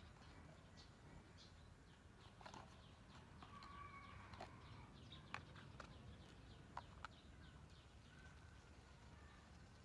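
Near silence: faint outdoor ambience with a few soft clicks and faint high tones.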